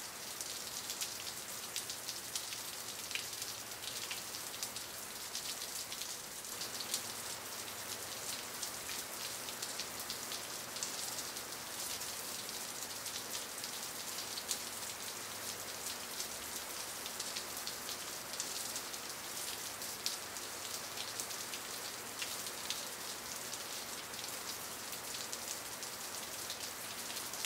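Steady patter and hiss of water, like rain on a surface: a dense, fine crackle, strongest in the high range, running evenly without change.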